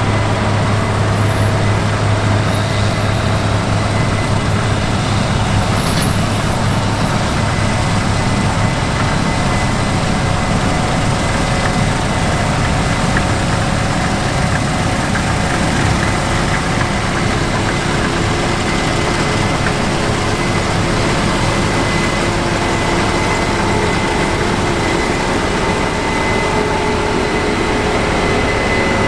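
Large diesel farm machinery running steadily, a constant engine drone with a strong low hum that eases off about eleven seconds in.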